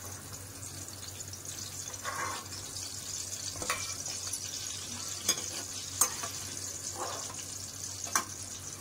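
Hot oil sizzling steadily in a kadhai as a metal ladle scoops out fried capsicum pieces. About four sharp metal clinks come from the ladle knocking against the pan and the plate.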